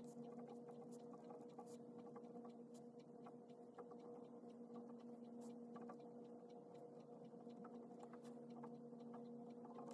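Faint scratching and small taps of a pen writing on paper by hand, over a steady low hum.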